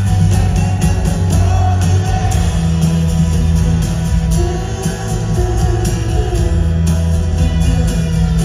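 Rock band playing live: a male singer's vocals over acoustic guitar and keyboards, with a steady beat and a strong bass line.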